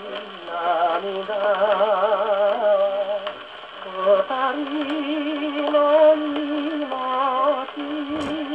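A 78 rpm shellac record of a 1948 Japanese popular song playing on a portable wind-up acoustic gramophone. A melody with strong wavering vibrato sits over accompaniment, and the sound is thin with no treble. A single sharp click comes about eight seconds in.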